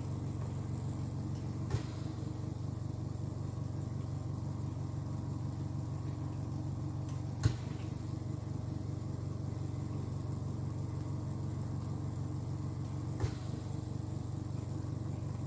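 A steady low motor hum, with three short clicks about six seconds apart.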